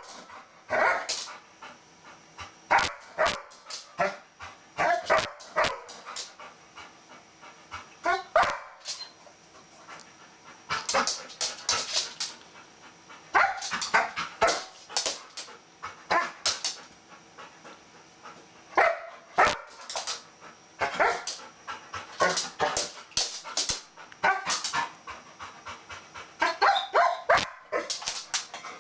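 Golden retriever barking excitedly in short, repeated bursts, again and again throughout, worked up by a bristlenose catfish it wants to play with.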